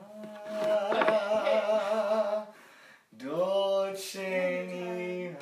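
A voice singing unaccompanied: long held notes with a wavering vibrato, in two phrases with a short break about halfway.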